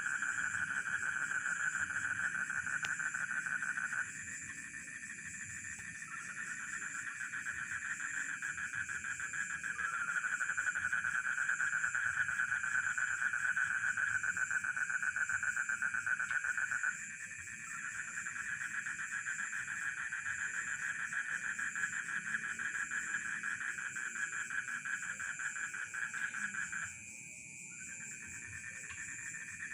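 Dense chorus of rice-field frogs and crickets calling together, with a steady high-pitched pulsing trill throughout. The loudest trilling voice stops three times for a second or two and starts again.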